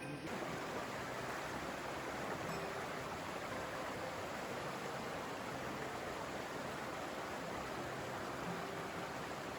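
Steady rushing of a flowing river, an even wash of water noise that comes in abruptly right at the start.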